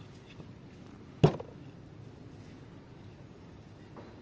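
A single sharp knock about a second in: the point of a D2-steel scandi-ground bushcraft knife (Dulo Knives Woody) struck down into a piece of wood lying on a wooden table.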